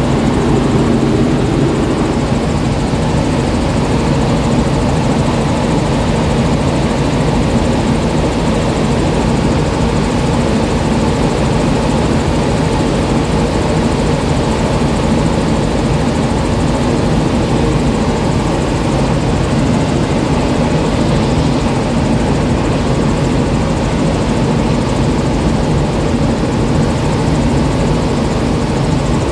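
Helicopter running steadily in flight: an even, loud drone of engine and rotor with a low hum that does not change.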